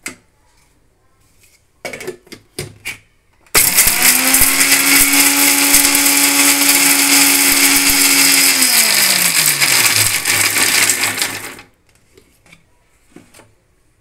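Electric mixer-grinder motor coarsely grinding dry whole spices, dried red chillies, coconut and ginger in its steel jar. It starts suddenly a few seconds in after some clatter of the jar, runs loud and steady for about five seconds, then its pitch falls as it spins down and stops.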